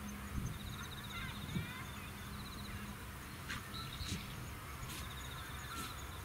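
Quiet open-air field ambience: a low steady rumble of wind, a high rhythmic chirring that comes and goes, and a few faint distant bird calls.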